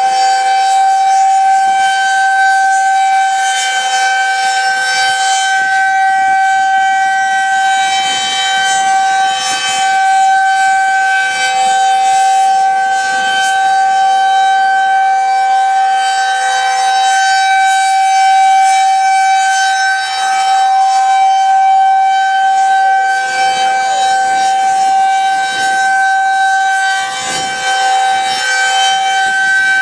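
Outdoor tornado warning siren sounding a loud, steady tone that holds one pitch with no rise or fall, its loudness swelling and dipping slightly.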